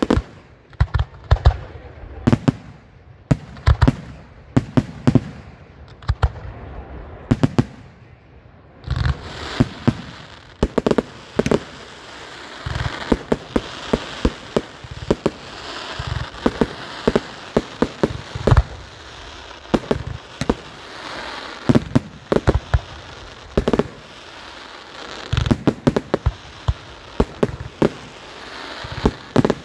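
Firework display: a rapid, irregular run of loud bangs from aerial shells bursting. About nine seconds in, a steady crackling hiss joins and runs on beneath the bangs.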